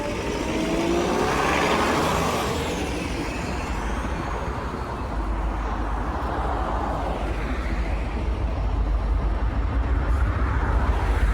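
Road traffic: cars passing one after another. The first swells and falls in pitch as it goes by, about two seconds in, over a steady low rumble.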